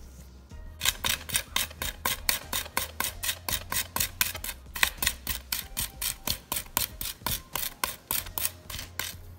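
Chef's knife blade held nearly flat and scraped rapidly back and forth over salted garlic on a wooden cutting board, grinding the garlic into a paste. The strokes come evenly, about five a second, starting about a second in and stopping shortly before the end.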